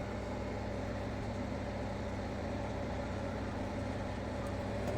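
A steady low hum with a few held tones, unchanging throughout.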